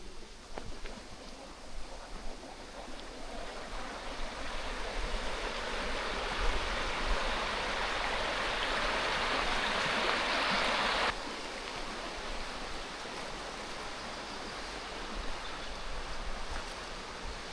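Waterfall water rushing as a steady hiss. It grows louder over several seconds, then drops suddenly about eleven seconds in to a quieter, steady flow.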